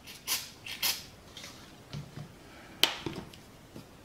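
A small brush scrubbing contamination off a toy's printed circuit board in a few short, hissy strokes, followed by light knocks of the plastic parts being handled and one sharp click about three seconds in.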